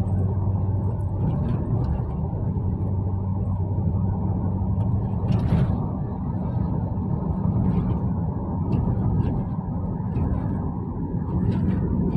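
Steady drone of a car's engine and road noise heard from inside the cabin while driving, with a brief louder rush about five and a half seconds in.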